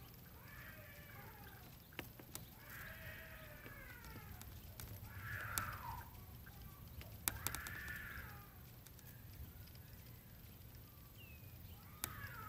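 An animal calling repeatedly: about five drawn-out, arching cries a few seconds apart, with a few sharp clicks between them and a low steady rumble underneath.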